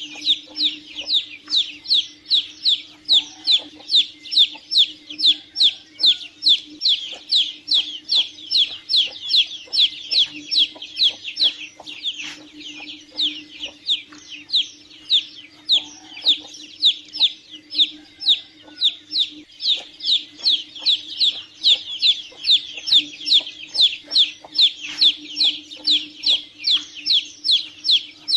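Domestic chicken chick peeping: a steady, rapid series of short high peeps, each falling in pitch, about three a second. A faint steady low hum runs underneath.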